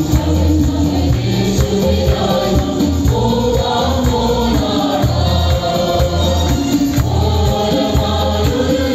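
A mixed choir of women and men singing a Malayalam Christian hymn together, backed by instruments with a steady low bass.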